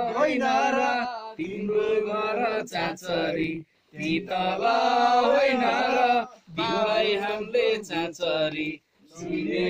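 A group of men singing a Nepali chachari folk song without instruments, in chanted phrases of about two seconds with short breaks between them.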